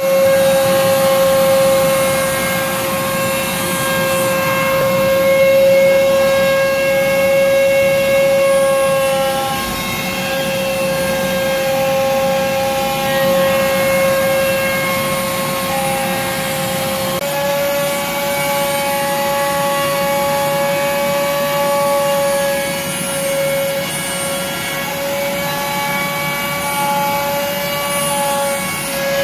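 CNC router spindle running and cutting into plywood: a steady whine over a hiss, shifting slightly in pitch about halfway through.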